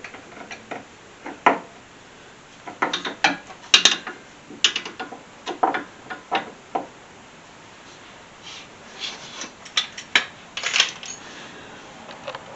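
Irregular metal clinks and clicks of hand tools and parts being handled during front strut work on a car, coming in scattered clusters with short pauses between.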